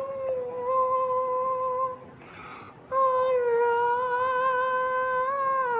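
A woman humming two long, steady held notes with a breath between them; the second note sags slightly in pitch just before it ends.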